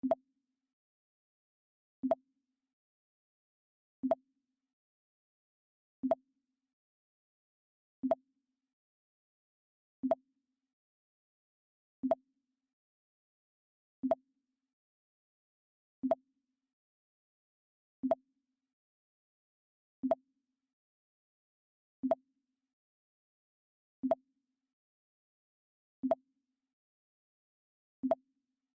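Mac OS X 'Pong' alert sound playing over and over: a short blip that dies away quickly, repeated every two seconds, fifteen times.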